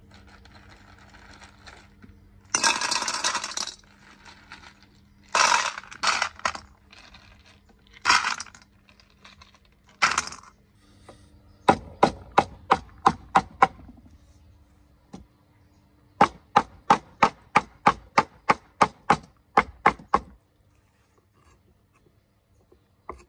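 Snail shells clattering into a stainless-steel frying pan in a few handfuls. Then a cleaver chops lemongrass on a wooden chopping board in two runs of quick, even strokes, about four a second.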